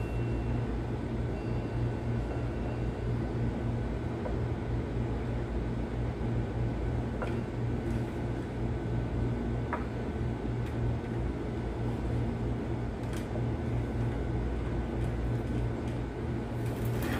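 A steady low machine hum, with a few light metallic clicks as a timing gear is worked by hand onto the gear train of a Caterpillar 3176 diesel engine.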